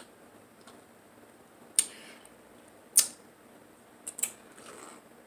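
Eating sounds from a seafood boil mukbang: a few sharp clicks and smacks about a second apart, with a closer pair near the end.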